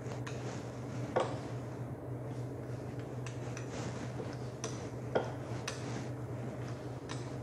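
Light clicks and knocks of a small hand roller and utensils on a countertop as dough is handled and rolled. The two sharpest knocks come about a second in and about five seconds in, over a steady low hum.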